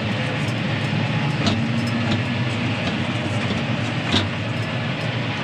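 Tractor engine running steadily, a constant low hum with a couple of faint ticks.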